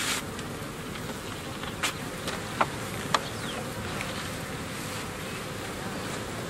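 Honeybee colony buzzing steadily from an open hive, with a few short light clicks about two and three seconds in.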